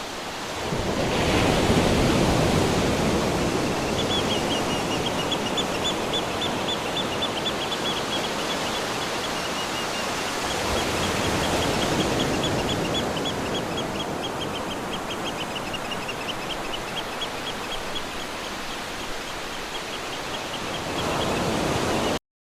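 Ocean surf washing steadily, swelling and easing. From a few seconds in, a rapid run of high chirps repeats several times a second over it. The sound cuts off suddenly just before the end.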